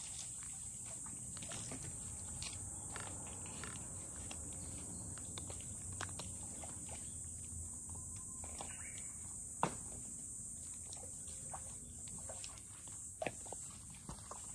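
A steady, high insect chorus, with a cat crunching dry kibble close by: many small clicks, and one sharper click about ten seconds in.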